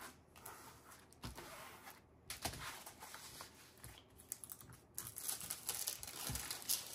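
Hands handling a diamond-painting canvas in its plastic cover film: soft rustling with scattered small clicks and taps, and a few duller knocks on the table.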